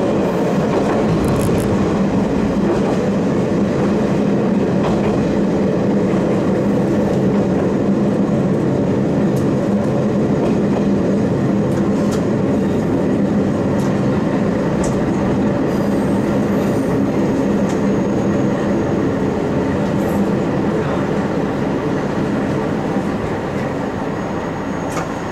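Hi-MO 295 diesel railcar running along the track: a steady engine drone with wheels clicking over the rails. It eases off near the end as the train slows to a halt at a station.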